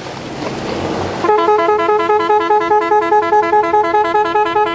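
Wind and sea noise, then about a second in a loud electronic two-tone warble starts abruptly, switching between two pitches about four times a second.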